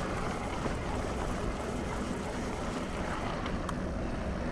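Steady wind rumble on the microphone with tyre and trail noise from a moving mountain bike, and a few small clicks.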